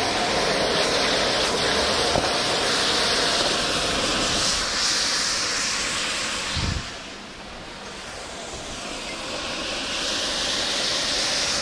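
High-output propane wok burner running under a wok of sizzling chicken and zucchini stir-fry: a steady, loud hissing rush. About seven seconds in there is a thump, and the sound drops sharply, then slowly swells back up.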